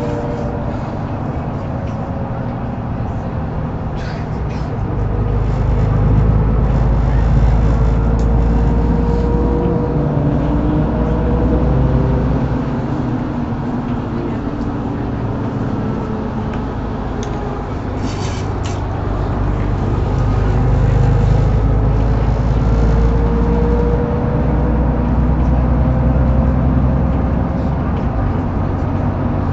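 Mercedes-Benz Citaro (O530) facelift intercity bus heard from inside while driving: the engine pulls up to a louder drone twice, with a whine rising and falling in pitch, and eases back in between.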